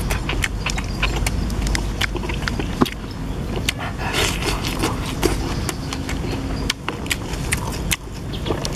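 Close-up eating sounds: chewing with scattered wet mouth clicks and smacks, and a crunchy bite into a raw green vegetable about four seconds in, over a steady low rumble.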